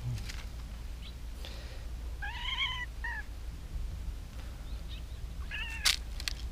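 Domestic cat meowing: a short meow about two seconds in, a brief second one right after it, and another near the end.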